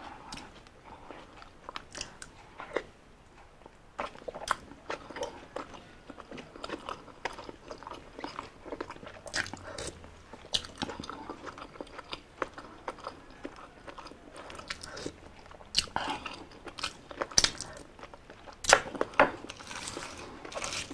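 Close-miked eating of balut topped with chopped chili: wet chewing, slurping and smacking with many short sharp clicks, a few louder ones in the last few seconds.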